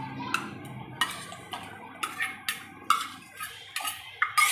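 Stainless steel bowls clinking and knocking against each other in a string of light, irregular metal taps while chopped onion is tipped into batter.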